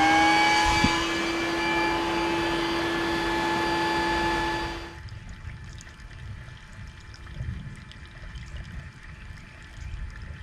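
Bee vacuum motor whining up in pitch as more suction is dialled in, then running steadily at the higher speed. About halfway through it drops abruptly to a much quieter hum.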